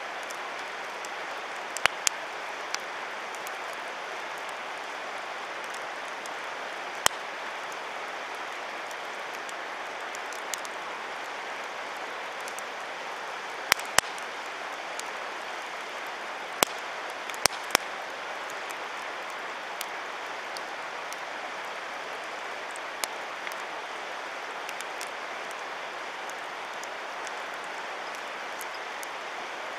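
Wood campfire crackling: sharp pops and snaps at irregular intervals of a few seconds, over a steady rushing hiss.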